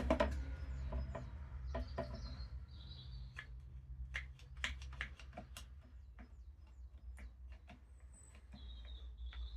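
A clamp being fitted and tightened on a freshly glued wooden chair joint: a sharp knock, then scattered light clicks and taps. Short high chirps come in about two seconds in and again near the end.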